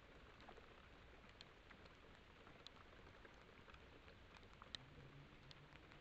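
Near silence: the faint steady hiss of a trail camera's microphone, with scattered faint ticks, the clearest about three-quarters of the way through.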